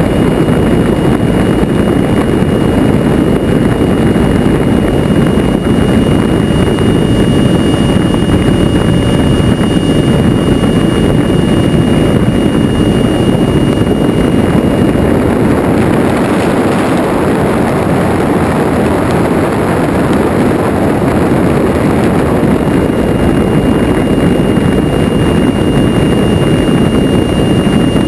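Airborne RC electric ducted-fan jet (70 mm fan driven by a 2400 kV outrunner) heard from a GoPro riding on top of it: steady, loud rushing of fan and airflow buffeting the camera. A faint high whine over it fades out a little past halfway and returns near the end.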